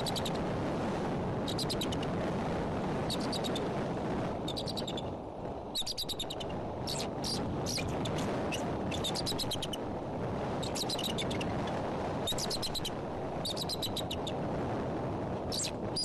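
Male bald eagle calling in repeated short series of rapid, high chittering notes, a series every second or two: alarm calls after a wind gust startled him off the eggs. Underneath, strong wind rushes steadily on the nest-cam microphone.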